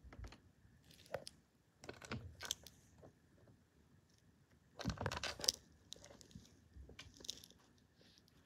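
Faint bursts of scratchy rustling and light tapping, about five in all with the loudest about five seconds in: a cat's paws and claws scuffling against a couch's fabric underside and a wooden floor.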